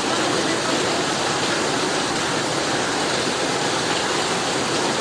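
Floodwater rushing down a street in a fast, steady torrent.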